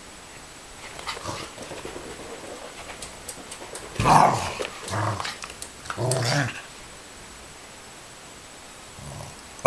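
Corgis play-fighting, an adult and a puppy: growls in three short, loud outbursts about four, five and six seconds in, with light scuffling before, over a steady microphone hiss. Another sharp, loud sound comes right at the end.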